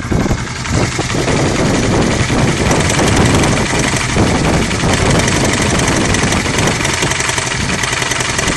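Honda CBR125R (JC34) single-cylinder four-stroke engine idling steadily with a clattering rattle from the engine, a noise the owner finds odd and cannot explain.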